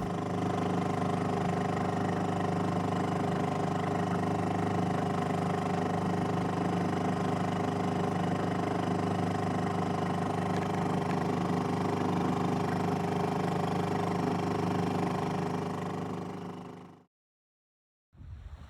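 Small outboard motor pushing a 15-foot sailboat at steady cruising speed, an even hum with several steady tones, fading out near the end.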